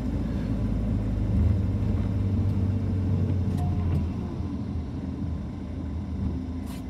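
Car in motion heard from inside the cabin: a steady low engine and road rumble that eases off about four seconds in. A single short click near the end.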